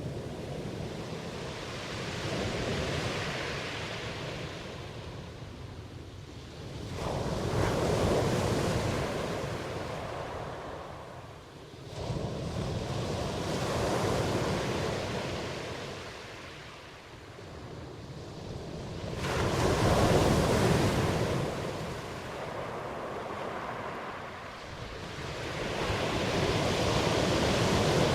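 Ocean waves breaking and washing up a shore, each surge swelling and ebbing about every six seconds, two of them arriving abruptly.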